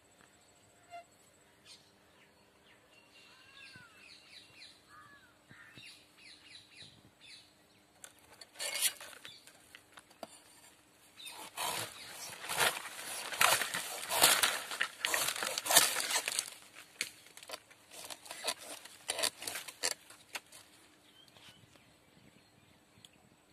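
Dry coconut palm fronds and husk fibre crackling and rustling in irregular bursts as they are handled at the crown of the tree. The bursts are loudest in the middle and thin out toward the end. A few faint bird chirps come before the crackling starts.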